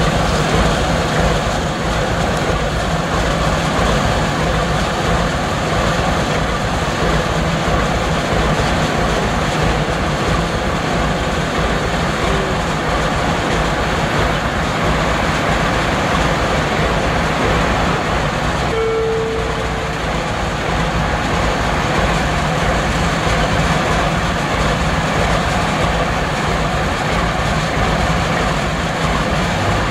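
Class V 65 diesel-hydraulic locomotive standing with its diesel engine idling steadily. A brief tone sounds about two-thirds of the way through.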